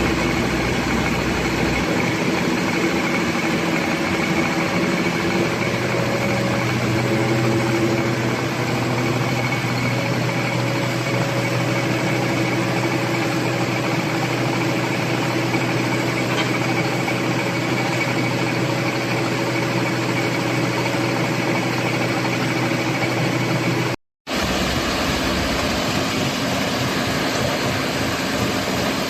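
Crawler concrete mixer pump's engine running at a steady speed, a constant mechanical drone with a steady hum, briefly cutting out once near the end.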